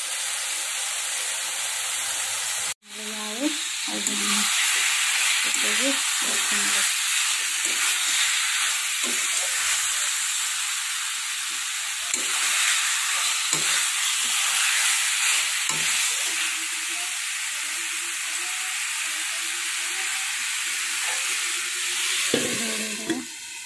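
Oil sizzling steadily in an iron kadai as masala paste and then pieces of ridge gourd and potato fry, with a metal spatula stirring and scraping now and then. The sizzle breaks off abruptly for a moment about three seconds in.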